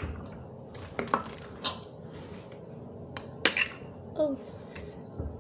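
Eggs being cracked open with a metal knife over a glass bowl: several sharp taps and clicks of knife on shell and glass, the loudest about three and a half seconds in.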